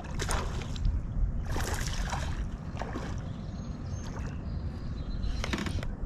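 Water sloshing around a small john boat, with a steady low rumble and a few short splashy swishes.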